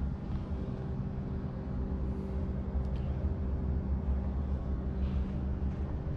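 Steady low droning hum with a few fixed tones, the room tone of a large indoor hall, with a faint click or two.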